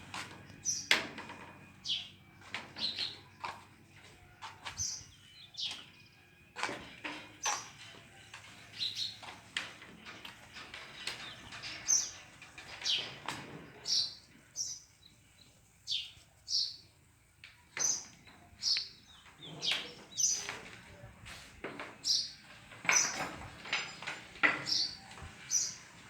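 Birds chirping, many short high calls repeating about once or twice a second.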